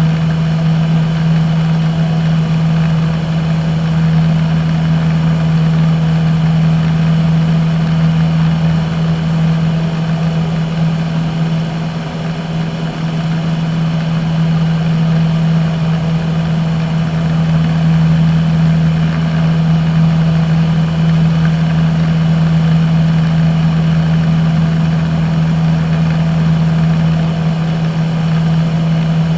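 Single-engine light aircraft's piston engine and propeller in cruise flight, heard inside the cockpit as a steady, loud drone with a strong low hum.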